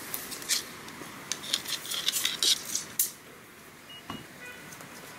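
Steel tape measure being handled against a pipe: a quick, irregular run of light metallic clicks and rattles for about three seconds, then they stop.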